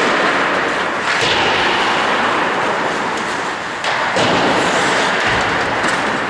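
Ice hockey play in an echoing rink: a steady, noisy wash of skates scraping the ice, broken by a few short knocks of sticks and puck.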